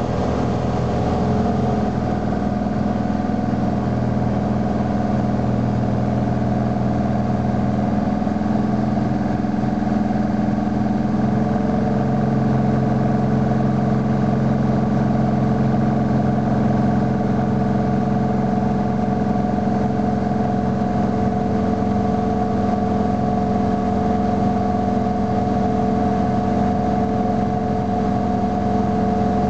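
Piper Cherokee's piston engine and propeller running steadily, heard from inside the cabin, on a landing approach. The drone shifts slightly in pitch twice, about a second in and again near the middle, as the power setting changes.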